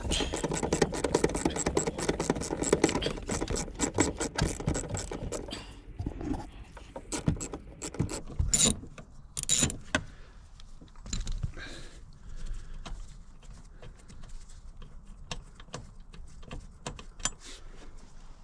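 Hand socket ratchet clicking rapidly for about five seconds, as a bolt is wound in or out. Scattered clinks and knocks of tools and metal parts follow.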